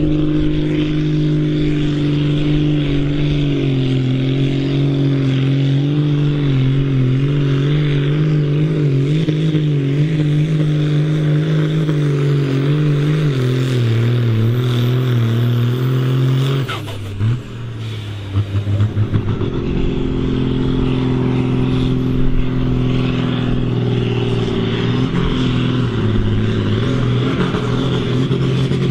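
Ford pulling tractors' diesel engines working hard at full load, dragging a weight-transfer sled. The engine note wavers and slowly sinks as the sled's load builds; about two-thirds of the way through it breaks off briefly and a second tractor's engine takes over, running steadier.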